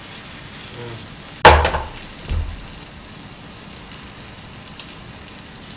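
Green onion pancake sizzling steadily in a frying pan on a gas burner. About a second and a half in comes a sharp, loud knock of the pan set down on the burner, then a softer thump.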